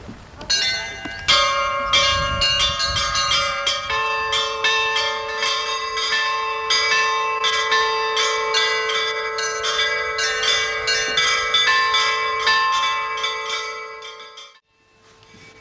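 Orthodox church bells ringing: a rapid pattern of many strikes on higher bells, with a deeper bell joining about four seconds in and ringing on under them. The ringing cuts off suddenly near the end.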